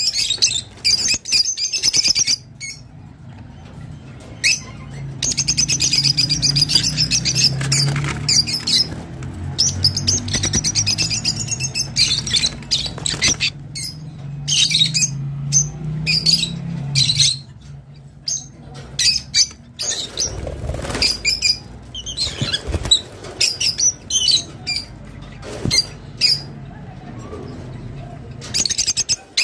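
Peach-faced lovebirds chattering: runs of rapid, high chirps and squawks, broken by short pauses.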